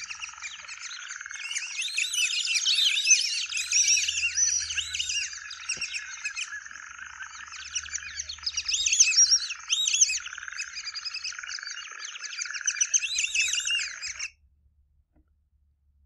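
Recorded calls of white-faced whistling ducks: many overlapping, clear whistles, several at once, cutting off abruptly about fourteen seconds in.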